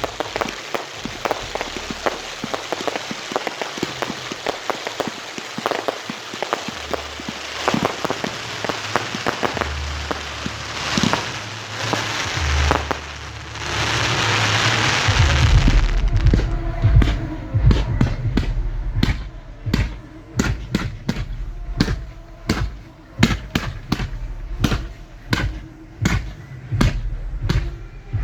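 Fireworks going off close by: a dense, rain-like crackling fizz of crackle effects, then from about sixteen seconds in a rapid run of heavy launch thumps and bangs, roughly two a second.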